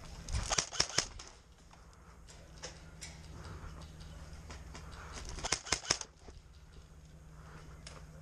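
Airsoft guns firing in two short bursts of sharp snapping cracks, one about half a second in and another a little after five seconds in.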